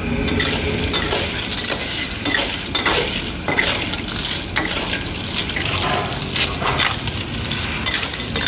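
Metal wok ladle scraping and clanking against a steel wok, many irregular strikes, as snails in their shells are stir-fried in a chili sauce, with steady sizzling underneath.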